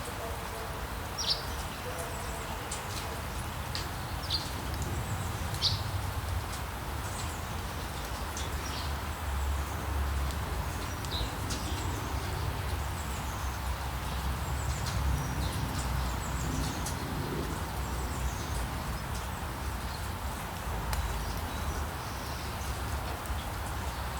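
Steady rain with a low town rumble beneath it, and birds chirping in short, high, falling notes, most of them in the first half.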